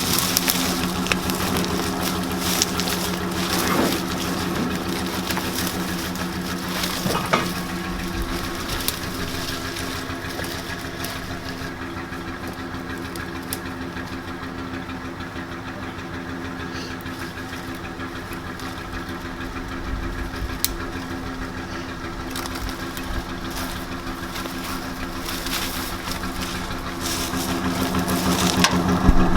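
Pickup truck engine running steadily, a little quieter through the middle and louder again near the end.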